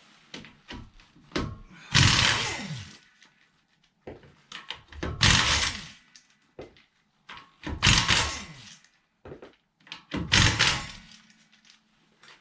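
Pneumatic impact wrench on a wheel's lug nuts: four bursts of about a second each, roughly two and a half seconds apart, each winding down in pitch as the trigger is released, with small clicks and knocks in between.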